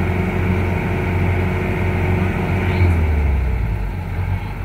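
Kubota rice combine harvester's diesel engine running steadily with a low hum while the machine is bogged down in a muddy paddy; about three seconds in its note drops lower.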